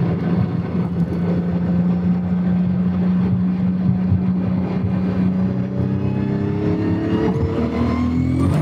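Turbocharged VR6 engine of a VW Golf 3, heard inside the cabin, running steadily at motorway speed, then revving up with rising pitch over the last two seconds as the car accelerates. A high whistle rises near the end.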